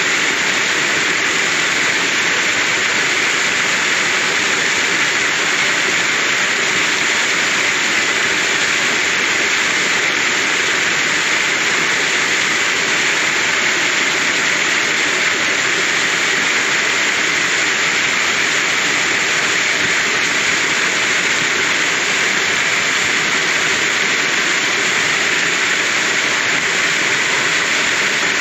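Small waterfall splashing down a rock face into a rocky pool: a steady, even rush of falling water.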